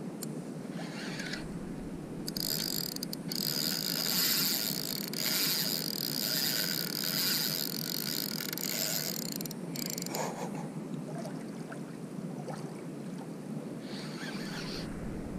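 Spinning fishing reel being cranked: a high-pitched mechanical whirring that runs for about seven seconds, with shorter bursts of winding near the start and near the end.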